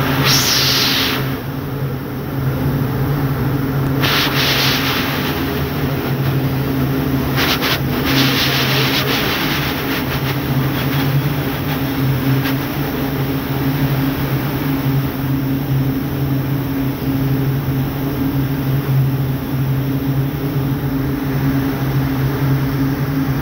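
Rows of multi-spindle thread winding machines running together: a loud, steady mechanical drone with a constant low hum. Brief hissy swells rise over it near the start and again about four and eight seconds in.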